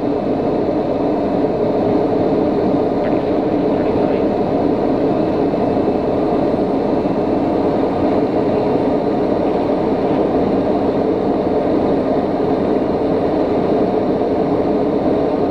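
Steady cabin noise of a TBM 850 single-engine turboprop in flight: its Pratt & Whitney PT6A turbine, propeller and airflow at a low approach power setting of about 20%, heard inside the cockpit. A constant drone that holds its pitch and level throughout.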